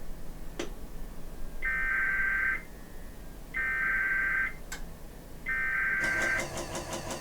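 Emergency Alert System SAME header: three identical bursts of warbling two-tone digital data, each about a second long with about a second between them, the coded header that opens a new alert, here a flood warning. A short click comes before the first burst and another after the second, and other audio begins near the end.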